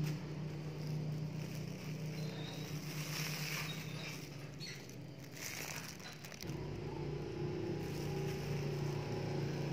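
Steady low hum of a motor, growing louder from about six and a half seconds in, with faint handling rustles.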